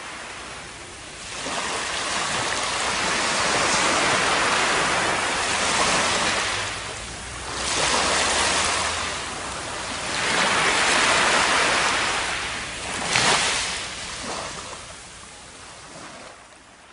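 Small waves washing up over a sandy beach and drawing back, the rush of water swelling and ebbing every few seconds, then fading out near the end.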